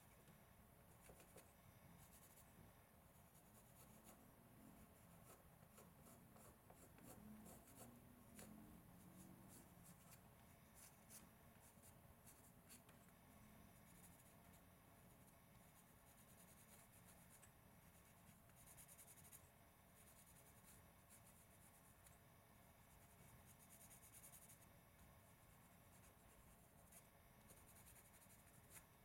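Faint scratching of a graphite pencil drawn in short strokes over a bare wooden carving blank, sketching guide lines.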